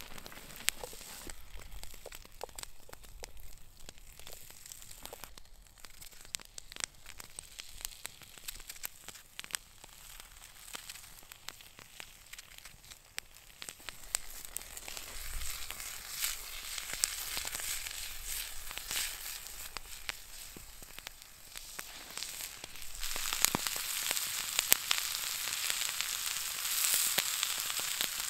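Potato and red onion frying in oil in a pan: a steady sizzle full of small crackling pops, growing louder about halfway through and again near the end.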